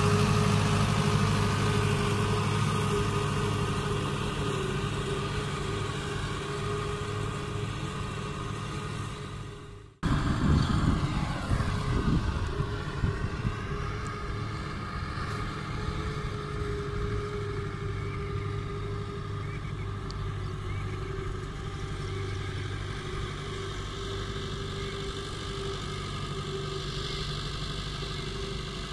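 1988 Fiat 640 tractor's four-cylinder diesel engine running steadily under load while it drags a laser land leveller through the soil, fading as it pulls away. It cuts off sharply about ten seconds in, comes back louder with the engine note shifting for a few seconds, then settles to a steady, quieter running.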